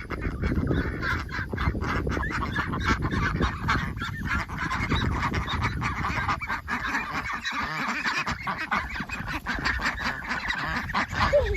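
Ducks quacking among a flock of chickens, a continuous overlapping mix of poultry calls with frequent short knocks and rustles underneath.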